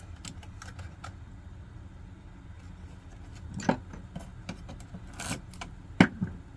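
Small clicks, scrapes and knocks of metal and plastic parts being handled while a CD/floppy drive is taken apart. A few light clicks come early, there is a short scraping rattle a little past five seconds in, and a sharp knock about six seconds in.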